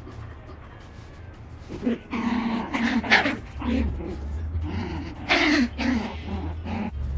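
Pomeranian puppy and adult Pomeranian play-fighting, growling and yipping. It is quiet for the first two seconds, then the calls come in bouts, loudest about three seconds in and again about five and a half seconds in.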